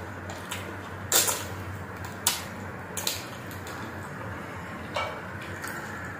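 Close-up eating sounds of a man eating chicken adobo and rice with his fingers: chewing with a few short, sharp mouth smacks, the loudest about a second in, over a steady low hum.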